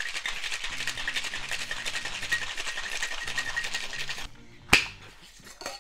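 Ice rattling fast inside a metal cocktail shaker shaken hard for about four seconds, stopping suddenly, followed by a single sharp knock.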